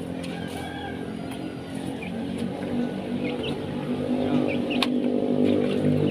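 An unseen motor vehicle's engine running steadily and growing louder as it approaches, with a few short bird chirps over it and a single sharp click near the end.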